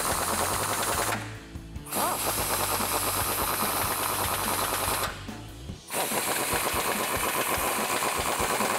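Cordless impact wrench hammering as it drives bolts tight through a socket and extension, in three runs broken by short pauses about one second and five seconds in.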